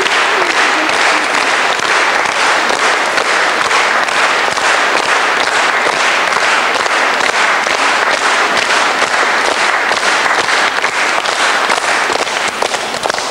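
Crowd applauding steadily, a dense, even clatter of many hands clapping.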